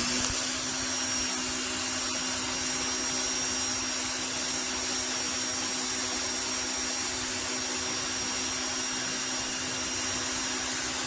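Electric pressure washer running with its trigger held, the motor giving a steady hum under the even hiss of the water jet spraying old stains off concrete.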